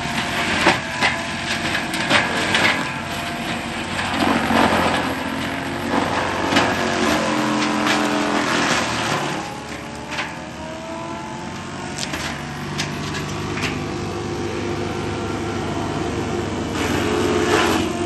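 JCB 3TS-8T compact track loader's 74-horsepower diesel engine working hard as its FAE forestry mulcher head shreds brush: a steady drone of engine and spinning rotor, broken by many sharp cracks of wood hitting the teeth. About halfway through, the load drags the pitch down, and it slowly climbs back.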